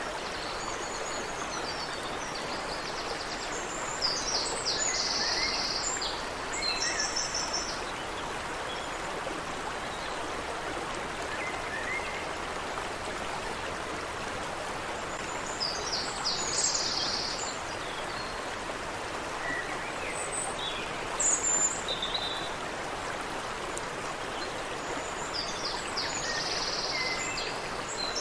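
Creek water running steadily, with songbirds singing short, high phrases now and then over it, about five times.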